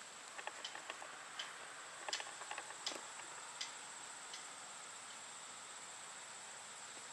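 Faint steady high-pitched hiss with a scatter of short ticks and clicks in the first few seconds; no siren is sounding.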